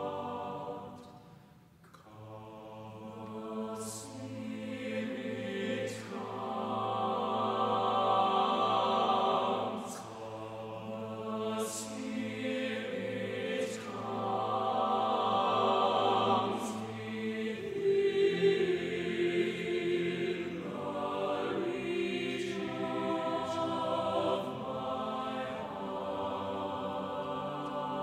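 Four-part mixed choir singing a cappella, soft phrases that swell and fade, with the basses holding a low hum beneath the upper voices through the first half.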